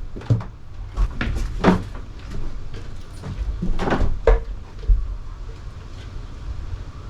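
A series of irregular wooden knocks and thuds from the plywood subfloor being worked on, about seven in the first five seconds, with the loudest around the middle, then a low steady rumble.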